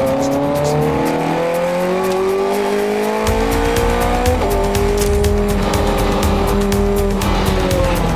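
Ferrari 430 Scuderia's V8 engine, heard from inside the cabin while lapping a race track: pulling hard and rising in pitch for about four seconds, then dropping suddenly and running on more steadily, with music mixed underneath.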